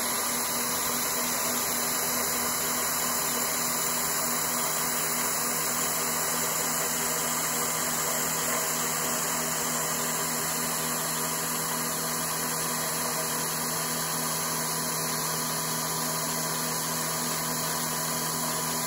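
CNC knee mill roughing aluminum plate with a quarter-inch solid carbide end mill at about 2000 rpm: a steady hiss from the spray-mist coolant over the even hum of the spindle and the cut. It stays unchanged throughout.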